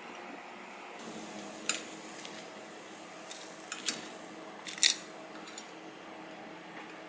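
Wooden chopsticks tapping and clicking against a nonstick rectangular omelette pan and a ceramic plate as pieces of fried shrimp tempura are lifted out. There are a handful of sharp taps, the loudest about five seconds in, over a faint steady hiss that starts about a second in.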